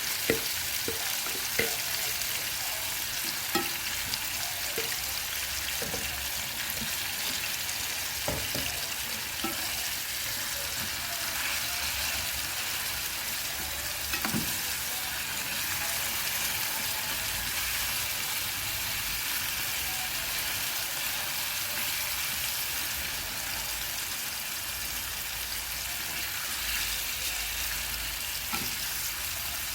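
Chicken breast steaks frying in fat in a pan: a steady sizzle with occasional sharp pops, more of them in the first several seconds.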